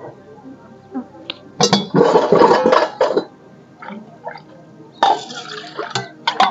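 Water scooped with a steel tumbler and poured into a steel bowl, in two pours of about a second and a half each, with a few light clinks of steel vessels.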